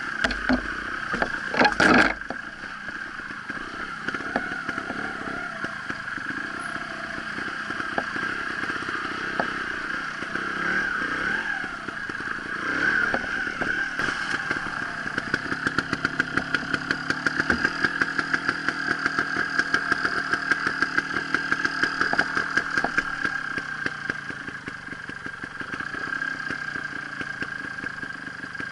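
Trials motorcycle engine running at low revs, with a few loud clattering knocks about two seconds in, then a fast, even putter through the second half.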